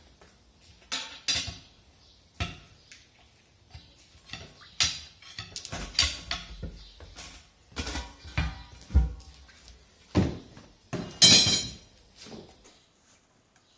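Steel tire pry bars knocking and scraping against a steel truck wheel rim as the tire bead is levered over the rim flange. A dozen or so irregular metallic clanks, some ringing, with the loudest clatter about eleven seconds in.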